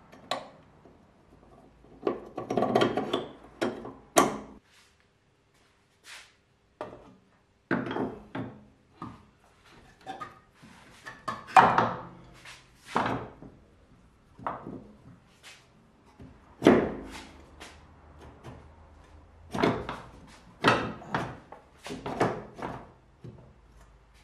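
Clunks, knocks and scrapes of a front coil spring and steel suspension parts being worked into place in a Saab 900's front wheel arch: a string of separate hand-work knocks with a short silent gap about five seconds in.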